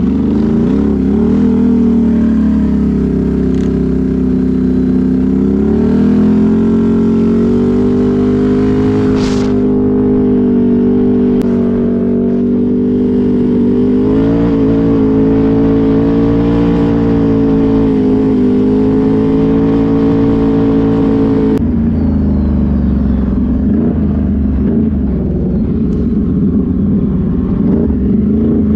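ATV engine running under load at road speed, its pitch stepping up and down as the throttle and speed change, with an abrupt change in the sound about two-thirds of the way through.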